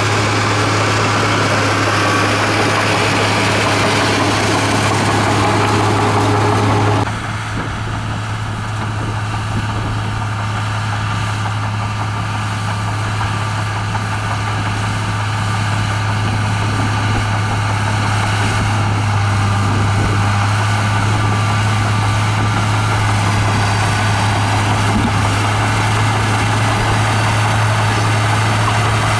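Komatsu bulldozer's diesel engine running steadily with a strong low hum. About seven seconds in the sound drops suddenly and turns quieter, then slowly builds back up.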